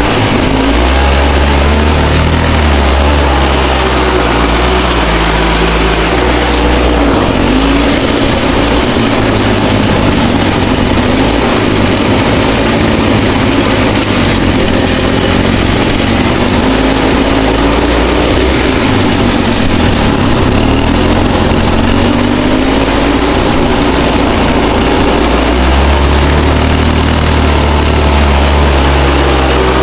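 Modified Craftsman lawn tractor's four-horsepower Briggs & Stratton engine running hard under load while driving up hills, its pitch rising and falling repeatedly as the throttle and load change.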